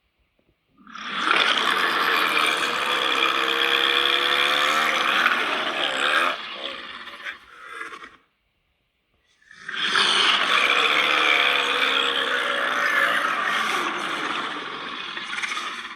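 Creature sound effect for the monster Megoliah: two long rasping vocal calls, each about seven seconds, with a second's pause between them. The first breaks up and tails off unevenly near its end.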